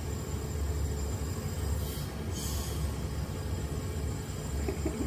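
Steady low machine hum from an animal incubator and oxygen concentrator running, with a short hiss of air about two seconds in.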